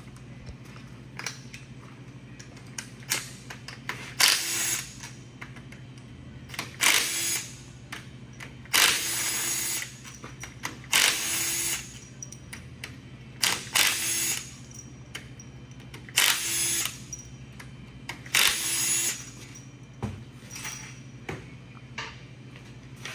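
Cordless impact driver spinning bolts out of a 4L60E transmission case in about eight short bursts a few seconds apart, over a steady low hum.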